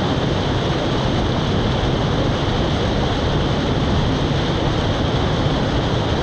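Mountain stream rushing over rocks close by: a steady, even sound of water.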